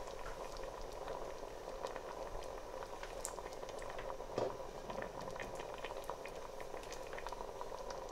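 A pot of brown lentil daal simmering: a steady soft bubbling with many small pops. One soft thump about halfway through.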